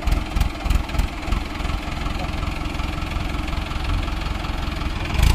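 Mahindra Arjun tractor's diesel engine idling, uneven for the first couple of seconds and then running steadier.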